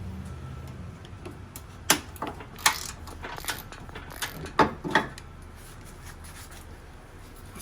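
Hand tools and metal car parts being handled during disassembly: a few sharp clinks and knocks spread over the first five seconds, then quieter rubbing and handling noise.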